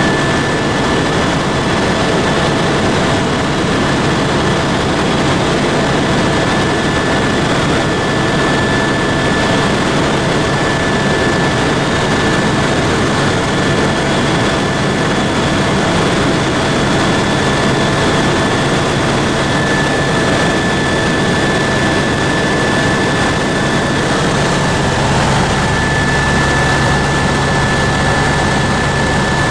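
Helicopter cabin noise in cruising flight: a loud, steady rush with a constant high whine running through it. The low rumble grows a little fuller near the end.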